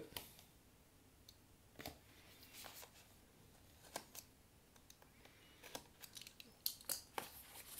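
Faint, scattered scrapes and clicks of a utility knife blade slitting the seals of thin cardboard card-deck boxes, and the box flaps being pried open.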